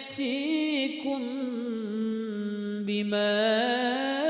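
A single voice chanting Quran recitation in melodic murattal style, drawing out 'fa-man ya'tikum' in long ornamented notes. There is a short break about three seconds in.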